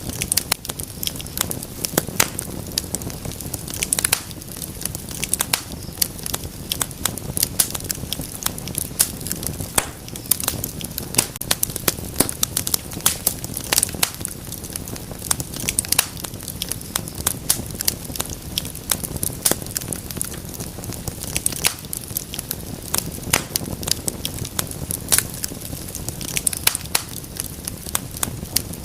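Wood fire crackling and popping, with many irregular sharp snaps over a steady low rumble of burning.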